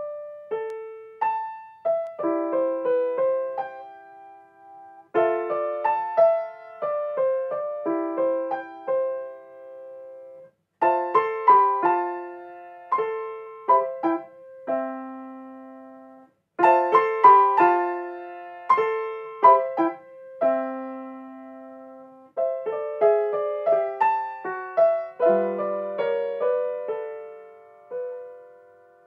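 Yamaha Disklavier grand piano playing a four-hands duet, its self-playing mechanism taking one part while a pianist plays the other on the same keyboard. The music comes in short phrases of light, quick notes broken by brief pauses, with a couple of longer held notes in between.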